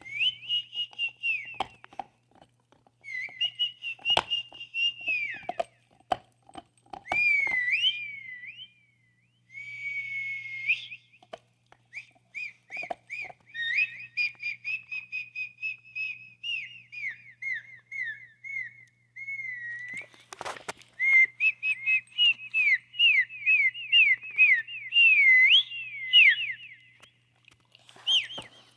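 High whistling: long runs of quick chirped notes sliding up and down, broken by short pauses and a few sharp clicks.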